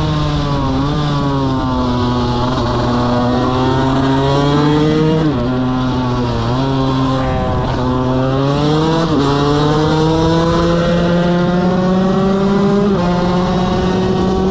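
KTM 125 motorcycle engine running hard under load, its pitch gliding down and up as the revs change, with sudden shifts in pitch about five seconds in and again about nine seconds in, then climbing slowly.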